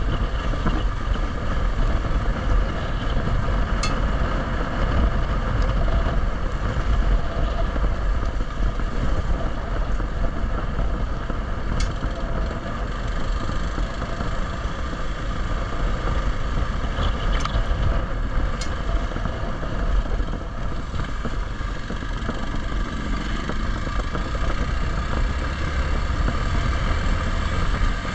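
Hero XPulse 200's single-cylinder four-stroke engine running steadily as the motorcycle is ridden off-road, with a few brief sharp clicks along the way.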